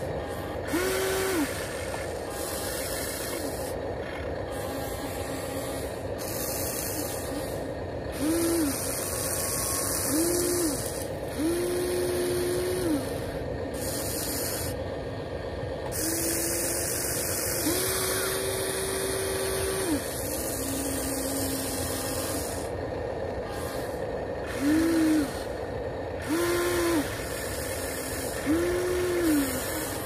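Electric motors of a HuiNa RC excavator whining in about ten short runs of a second or two, each rising in pitch as it starts and falling as it stops, as the arm, bucket and turret move. A steady hiss runs underneath.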